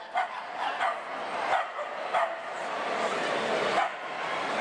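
Dogs barking, several short, sharp barks about a second apart over a steady background hubbub.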